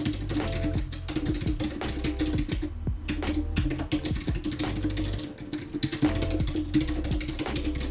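Fast touch-typing on a Goldtouch split keyboard, a dense run of key clicks, over background music with a repeating bass line.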